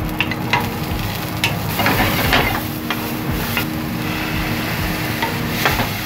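Chopped broccoli and mushrooms sizzling in a hot non-stick frying pan as they are tipped in and stir-fried, with repeated scraping and clicking strokes of a wooden spatula against the pan.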